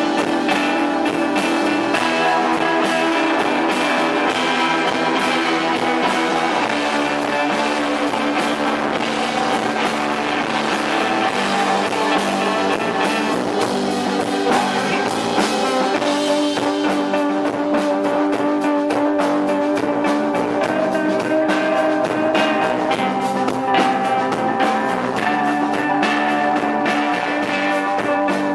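A post-punk rock band playing live: a guitar-led instrumental intro with sustained chords that change every few seconds over steady percussion.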